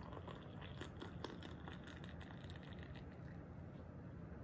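Water poured from a kettle into a ceramic mug, faint, with scattered light clicks.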